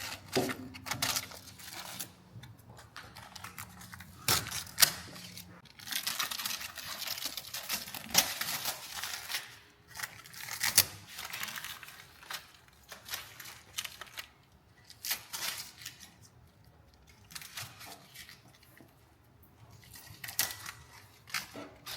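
Scattered metal clicks, clanks and knocks of hand tools and parts being handled, with a stretch of hiss about six seconds in.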